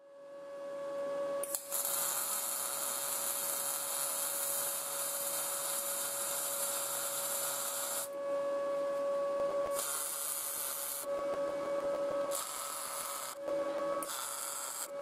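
MIG welding arc crackling and hissing in separate welds: one long run of about six seconds, then several short tack-length bursts. A steady hum continues underneath.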